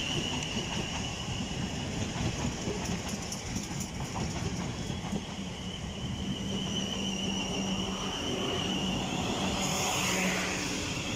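A pair of Class 444 electric multiple units running close past along the platform, with steady wheel and track noise, a constant whine and scattered clicks from the wheels over the rail joints.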